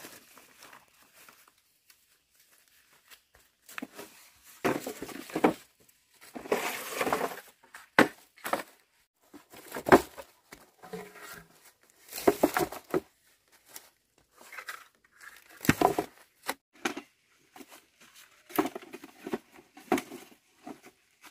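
Cut bamboo poles being handled on dry leaf litter: irregular knocks and scrapes of the poles, with a few sharp knocks, between crunching and rustling of dead leaves.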